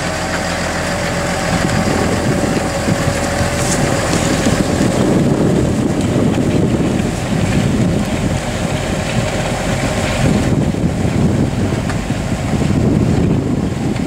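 Tractor engine of about 155 horsepower running steadily under load as it pulls a five-furrow plough through the ground, striking out the first furrows. A thin steady whine in the first few seconds fades out.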